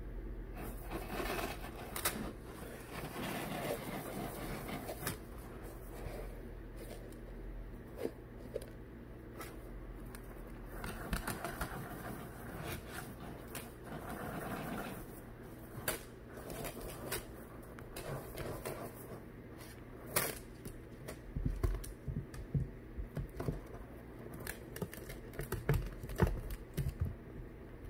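Dry uncooked rice rustling and pattering as a ferret digs and burrows through it in a plastic tub, in uneven spells with many short sharp clicks, the clicks sharper and more spaced in the last part.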